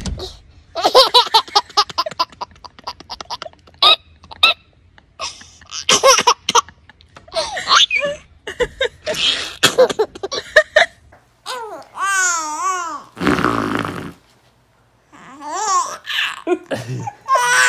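Baby laughing in rapid repeated bursts of giggles for about ten seconds; then, after a break, a baby's laughing squeals with wavering pitch, with a short silence in between.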